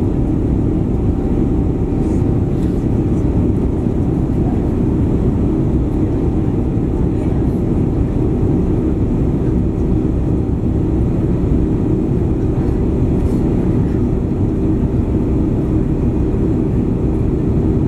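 Airbus A350-900's Rolls-Royce Trent XWB turbofan engines and airflow heard inside the passenger cabin during the climb after takeoff: a steady, deep noise with a faint hum of steady tones.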